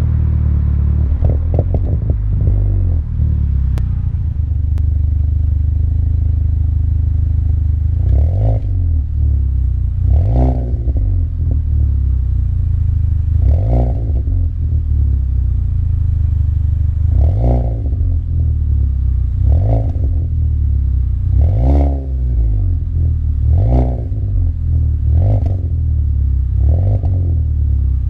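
Alfa Romeo 159 1750 TBi's turbocharged four-cylinder engine heard at the tailpipe, through an exhaust with an aftermarket downpipe, the mid silencer removed and a Vibrant resonator fitted. It runs with a steady low drone, then from about eight seconds in it is revved briefly about nine times, each rev rising and falling back to idle.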